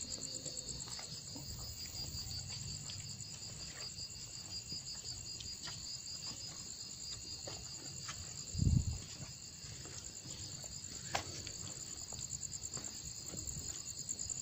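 Crickets chirring in a steady, high-pitched, finely pulsing chorus. A brief low thump about nine seconds in is the loudest moment.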